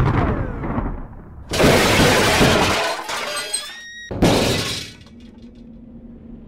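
Crash sound effects of robots smashing and falling apart. A loud crash fades out early, another big crash comes about one and a half seconds in, and a high ringing tinkle is followed by a shorter crash a little after four seconds. After that only a low steady hum remains.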